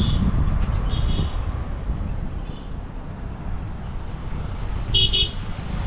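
Steady low rumble of a car driving on a winding mountain road, with short horn toots a few times, the loudest near the end.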